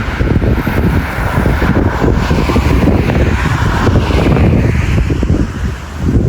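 Wind buffeting the microphone: a loud, gusty low rumble that never lets up, with a hiss of outdoor noise above it.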